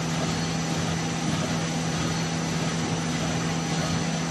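Automatic facial tissue packing machine and its box conveyor running: a steady mechanical din with a constant low hum and a faint high whine.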